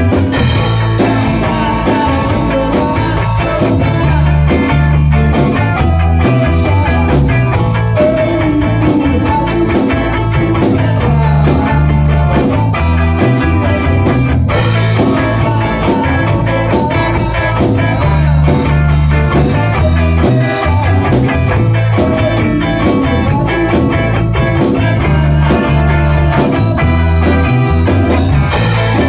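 Rock band playing live: electric guitar over bass guitar and a drum kit, with a steady beat.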